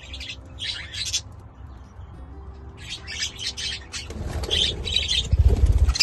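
Budgerigar bathing in a jug of water: several short bursts of splashing and wing fluttering, louder near the end as wings beat close by.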